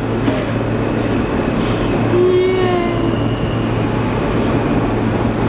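Subway train running, a steady loud rumble and rattle, with a brief whine about two seconds in.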